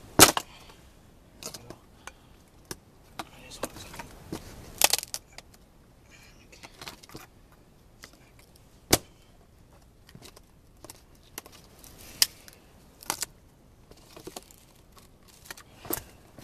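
Dry, dead pine branches knocking and clattering as they are picked up and moved over gravelly ground: a string of irregular sharp knocks and cracks, the loudest about a third of a second in.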